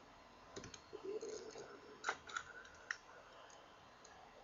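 A few faint, sharp computer mouse clicks, spread unevenly over the first three seconds.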